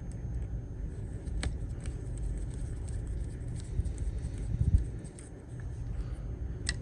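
A few faint clicks and taps of a small hand driver and screw being worked into the steering rack assembly of an RC truck, over a steady low rumble.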